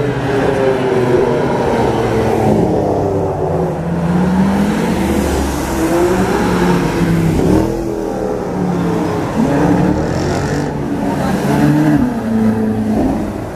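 Several sports car engines passing along a street one after another, their pitch rising and falling repeatedly as the drivers rev and change gear. A Ferrari California's V8 passes close near the end.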